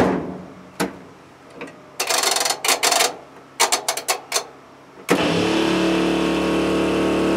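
A 12-volt water pump kicks on suddenly about five seconds in and runs with a steady hum. It switched on by itself because the washing machine started drawing water. Before it come a few short bursts of noise.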